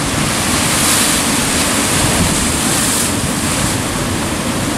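Sea surf surging and breaking against a rocky cliff base, a steady loud rush of churning water that swells briefly about a second in. Wind rumbles on the microphone underneath.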